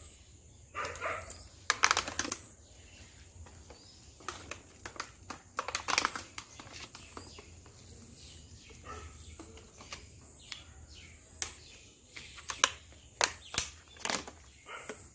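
Irregular sharp clicks and crackles of handling noise. They come in small clusters about two seconds in, again around six seconds, and most densely near the end.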